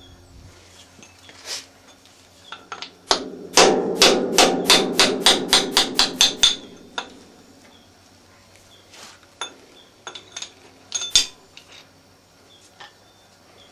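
C41 pneumatic forging hammer striking the work: a single blow, then a fast, even run of blows at about five a second for some three seconds. Lighter metallic clinks and knocks of tooling being handled follow.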